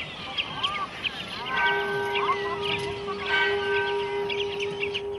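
Many birds calling and chirping. About a second and a half in, a long steady held tone joins and carries on to the end.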